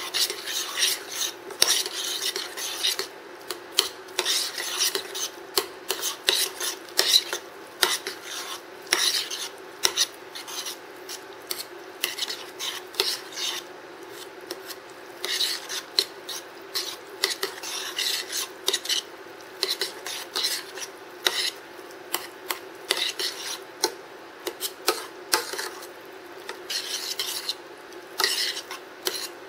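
Metal spoon stirring thick mashed cauliflower in a stainless steel saucepan, scraping and clinking against the pan's sides and bottom in quick, irregular strokes. A steady low hum runs underneath.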